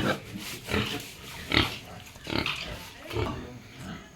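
Pigs grunting, short grunts repeating roughly once a second.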